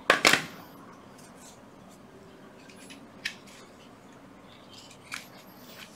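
A sharp clack of hard plastic tool parts being handled just after the start, then two faint clicks over quiet room tone; no drill motor running.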